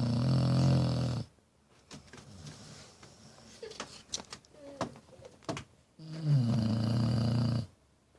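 Snoring: two long snores about six seconds apart, each just under two seconds long and starting with a falling pitch, with quieter breathing sounds and a few faint clicks in between.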